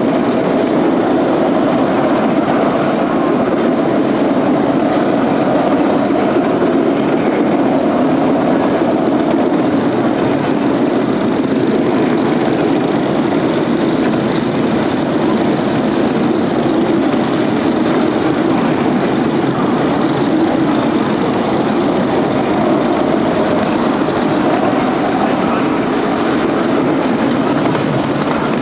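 10.25-inch gauge miniature railway train running along its track, a steady rumble of carriage wheels on the rails.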